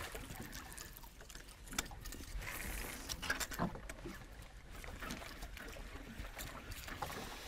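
Faint water lapping and trickling against the hull of a small fishing boat, with scattered light clicks and taps.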